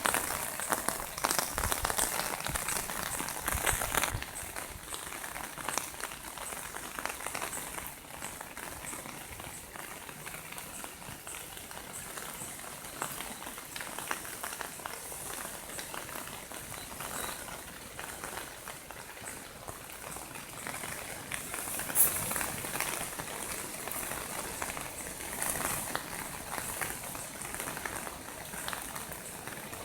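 Heavy rain pouring down: a dense crackling patter of drops hitting surfaces, heavier for the first few seconds, with one sharper, louder hit about two-thirds of the way through.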